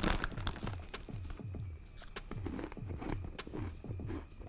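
Eating Cheez-It crackers: a crinkle of the snack bag near the start, then soft chewing and small crunches, over faint background music with a steady low beat.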